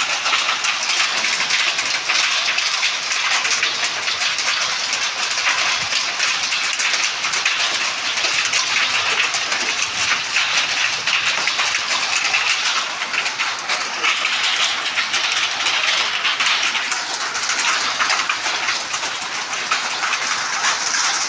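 Heavy rain falling steadily: a dense, unbroken hiss of many drops striking surfaces.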